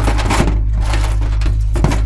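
Dark film score under the opening credits: a deep steady drone with crackling, crunching noise hits over it, strongest about half a second in and again near the end.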